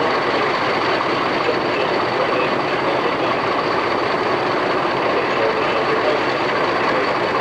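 Two Class 50 diesel-electric locomotives with English Electric V16 engines working under power at the head of the train, heard from an open carriage window: a loud, steady mix of engine noise and the running noise of the train.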